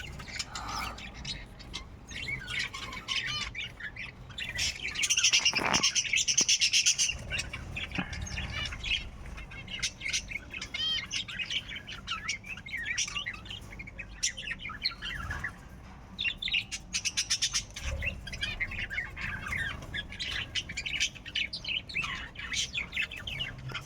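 A flock of caged budgerigars chattering and warbling nonstop, many high chirps overlapping, loudest about five to seven seconds in.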